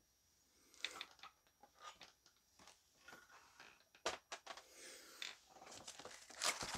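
Faint handling noises of hard plastic graded-comic slab cases being lifted from a wire display stand and picked up: light scattered clicks, a sharper click about four seconds in, and rustling near the end.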